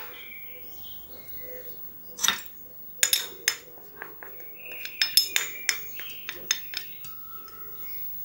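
Metal spoon clinking and scraping against a small ceramic dish as ground spice is knocked out into the pot: one click, then a run of quick sharp clinks from about three seconds in.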